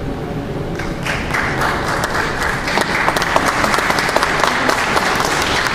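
Audience applauding, breaking out about a second in and continuing strongly.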